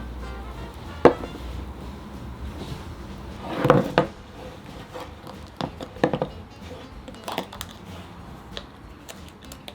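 Kitchenware knocking and clinking: a sharp knock about a second in, a louder cluster of knocks around four seconds in, then several lighter clicks, over background music.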